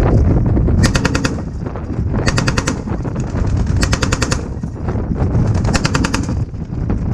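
M240 7.62 mm belt-fed machine gun firing four short bursts of about half a second each, roughly a second and a half apart, over heavy wind noise on the microphone.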